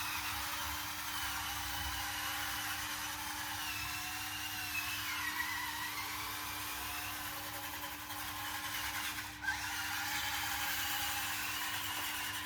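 Small electric drive motors and gearboxes of a 1/16-scale RC bulldozer whining steadily. The pitch wanders and sags around the middle as the speed changes. There is a brief dip just past nine seconds.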